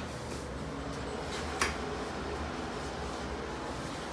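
Quiet indoor room tone: a low steady hum, with one short faint click about one and a half seconds in.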